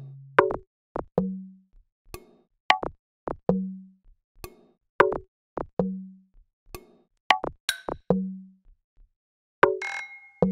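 Sparse live-coded electronic music built from MiniTidal sample patterns: short, dry clicks and woody plucks in an uneven pattern, with a low thud about every two and a quarter seconds and a brief hissy tone near the end.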